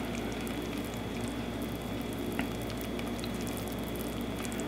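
Shiro powder being stirred with a wooden spoon into a simmering stew in a clay pot: a steady bubbling, sizzling hiss with a few faint ticks.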